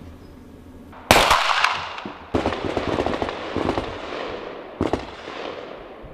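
M17 9 mm pistols firing on a qualification range: a first loud shot about a second in, then a quick run of overlapping shots from several shooters, each followed by echo off the range walls.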